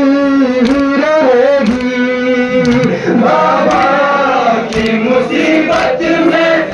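Male voices chanting a Kashmiri noha, the Muharram lament for the martyrs of Karbala, together in long held notes.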